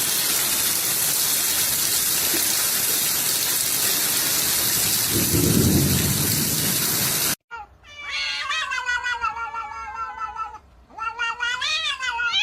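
Steady heavy rain with a deep rumble of thunder swelling about five seconds in, cut off suddenly. Then a domestic cat meows in long, drawn-out calls that bend up and down in pitch.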